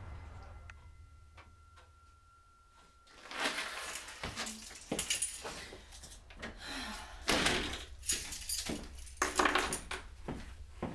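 Keys jangling and a door being handled: a run of irregular rattles and knocks that starts about three seconds in and goes on to the end.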